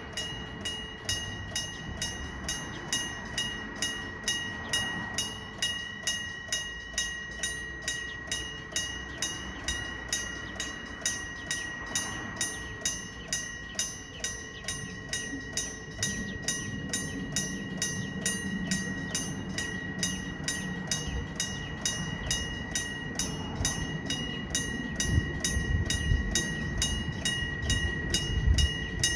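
Electric-bell level-crossing warning bell ringing in an even, rapid rhythm of metallic strokes. From about halfway a train approaches and rumbles across the crossing, loudest with sharp knocks near the end.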